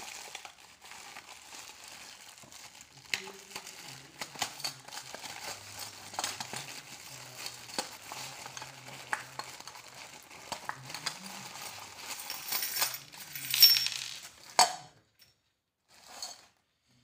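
Plastic packaging crinkling as a packet of brass-coloured chandelier ceiling hardware is opened, with the metal chain and small fittings clinking against each other. One sharp knock near the end as the parts land on the concrete floor.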